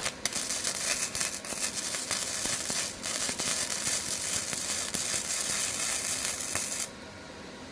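Arc welding: a steady crackling sizzle for about seven seconds that starts with a sharp crack as the arc strikes and cuts off suddenly when it is broken.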